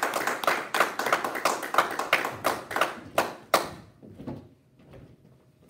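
A few people clapping, a quick run of separate claps that stops about three and a half seconds in. After it come a few faint steps, then quiet room tone.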